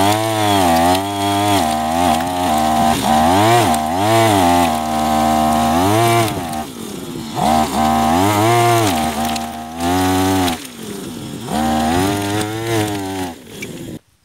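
Small two-stroke engine of a homemade grinder-head trencher running under load as its disc cuts through soil, revved up and down over and over about once a second, easing back twice in the middle, then cutting off suddenly near the end.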